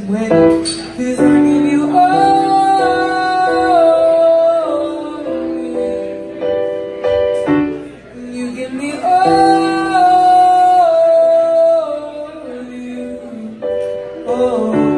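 A teenage boy's high singing voice over his own keyboard piano accompaniment, in two long phrases of held, sustained notes.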